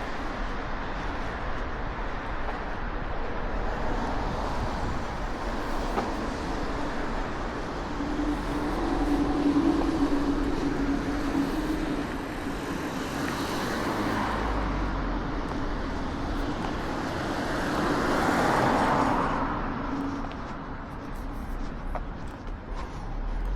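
Steady rushing outdoor noise of a windy day, with two louder passing swells: one about eight to twelve seconds in, carrying a low steady hum, and another that peaks near nineteen seconds.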